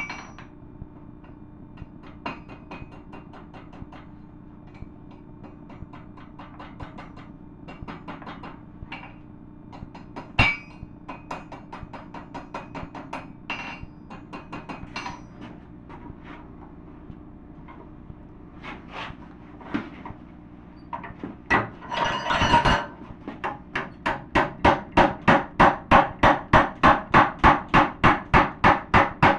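Hand hammer striking red-hot steel bar: quick light taps on the anvil as the tip is curled into a small scroll, with one louder strike about a third of the way in. After a brief clatter about three-quarters through, heavy, even blows about three a second ring out as the bar is hammered over while clamped in a vise.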